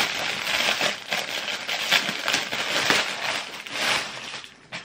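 Clear plastic poly mailer bag crinkling and rustling as clothes are pulled out of it: a continuous run of crackles that dies down near the end.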